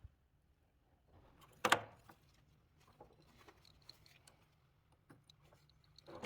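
Handling noises from parts and tools being worked on a bench: scattered light clicks and taps, with one loud sharp knock about two seconds in and a smaller one near the end.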